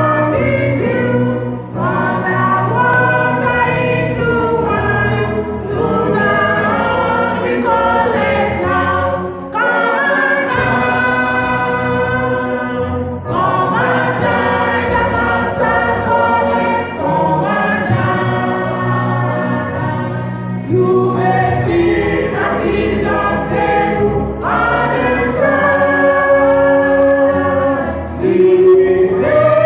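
Church choir singing together, led by a conductor, in sung phrases a few seconds long.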